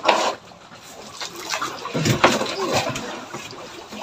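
A wooden plank knocks and scrapes against a fishing boat's fish hold as a large fish is levered and shifted: a sharp knock at the start, then a few scattered knocks and scrapes.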